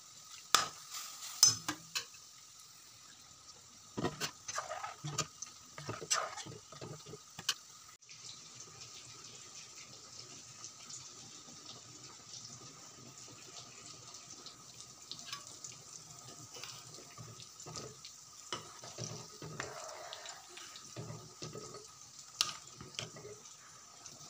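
Steel spoon clinking and scraping against a metal kadai as cooked moong dal is poured into hot tempered oil and stirred, with scattered knocks in the first eight seconds. After that, the dal boils faintly on a high flame with light ticks and bubbling.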